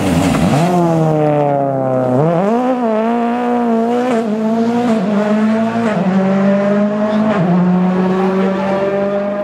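Rally car engine running hard. Its pitch dips at first, climbs, jumps up about two seconds in, then mostly holds high with small dips as the throttle and gears change.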